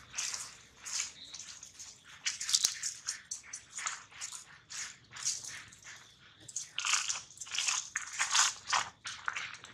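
Dry fallen leaves crunching and rustling underfoot in short, irregular crackles. There is a loud cluster about two and a half seconds in and a denser run from about seven seconds.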